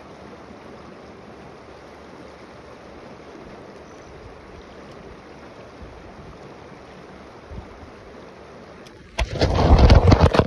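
Steady rush of a shallow, fast-flowing creek. About nine seconds in, a loud, brief jumble of knocks and rumbling as the phone recording it topples over.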